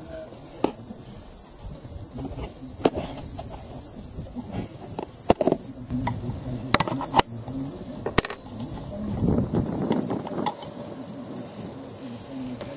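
Steady high-pitched trilling of insects such as crickets, with scattered sharp clicks and taps through it.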